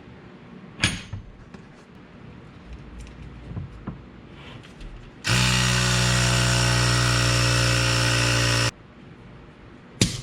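Electric power tool motor running at a steady speed for about three and a half seconds, starting and stopping abruptly. There is a sharp clack about a second in and another near the end.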